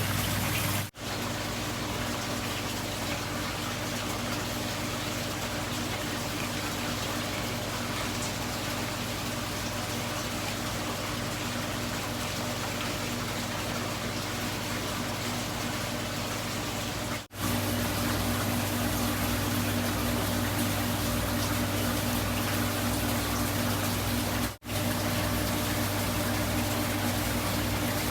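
Water running steadily, with a low steady hum under it. The sound breaks off for an instant twice, about a third of the way through and again near the end, and picks up slightly louder after the first break.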